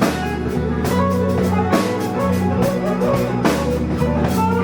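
Band playing a slow blues on electric guitar, bass and drum kit between sung lines, with a drum hit about once a second.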